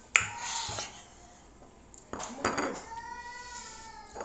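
Glass hot sauce bottle clinking as it is handled: one sharp knock just after the start, then a rougher handling noise about two seconds in. A voice sounds briefly around three seconds in.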